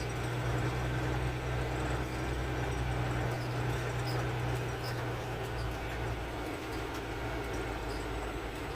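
Semi truck's engine running with road noise: a steady low drone under an even rumble, the drone easing about six seconds in.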